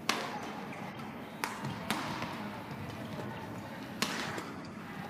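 Badminton rackets hitting a shuttlecock in a rally: four sharp strikes, the first and last the loudest, each trailing a short echo.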